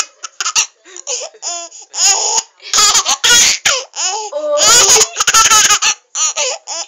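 Baby girl laughing hard in a string of loud bursts with short breaths between, stopping just before the end.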